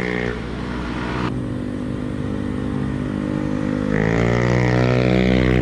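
Honda Beat scooter's single-cylinder engine running through a Tsukigi WRC aftermarket exhaust as the scooter rides by. The engine note drops away abruptly early on, then a scooter approaches and grows louder from about four seconds in.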